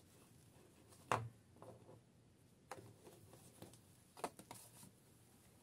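Handling noise from small plastic dolls and a cardboard box: a few scattered light taps and knocks, the sharpest about a second in and a quick cluster around four seconds in.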